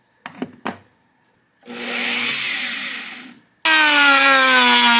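Dremel rotary tool spinning a sanding drum against a block of wood. Two short clicks come first, then a run of the motor's whine that swells and fades out. About three and a half seconds in, the whine starts again abruptly and loud, its pitch slowly dropping.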